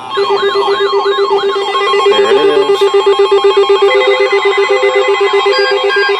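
Several weather-radio alert alarms sounding at once for a tornado warning: warbling siren-like sweeps, a steady pulsing tone and repeated beeps layered together, with another beeping alarm joining about four seconds in.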